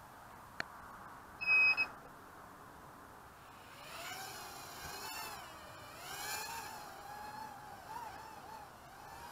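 A short, loud electronic double beep, then the whine of an 85 mm micro quadcopter's 8.5 mm coreless brushed motors as it lifts off and flies, the pitch rising and falling constantly with the throttle.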